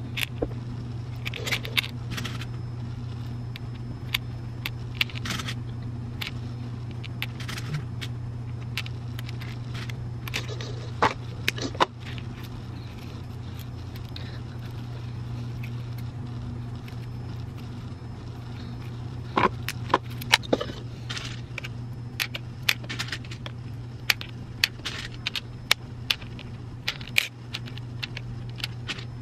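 Small plastic beads clicking and rattling against each other and a clear plastic tray as they are picked out and threaded onto elastic cord: scattered sharp clicks, busiest in the second half. A steady low hum runs underneath.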